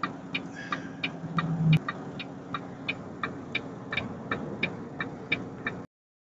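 Steady low hum and road noise of a vehicle cab, with sharp regular ticking about three times a second and a short low buzz about a second and a half in; the sound cuts off abruptly near the end.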